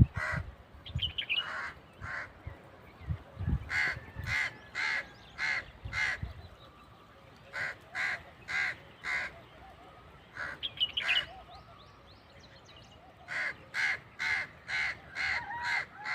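Crow cawing in runs of four to six harsh caws, with a couple of brief high chirps from a smaller songbird in between.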